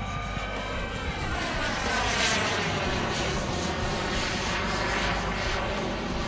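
Turbine engine of a radio-controlled jet flying past with a whining roar. Its pitch falls as it passes, and it is loudest about two seconds in.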